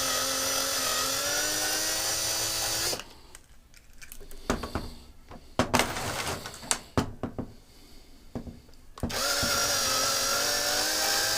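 Small power drill running while drilling out the third rivet of a Matchbox die-cast truck. It stops about three seconds in, followed by several sharp clicks and knocks, then starts up again about nine seconds in.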